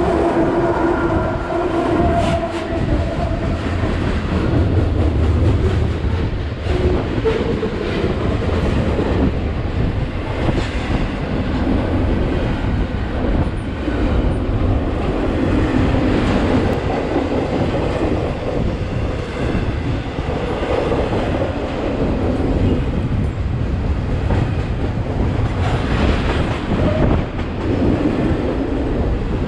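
Freight train passing close by on the adjacent track: a diesel locomotive's engine tone in the first few seconds gives way to the steady rumble and clatter of wheels of double-stack container cars rolling past.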